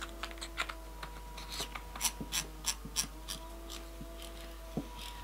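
Threaded cap of an aluminium flashlight being screwed back onto the body to close the battery tube, the threads giving a run of light clicks and scrapes, about three a second in the middle.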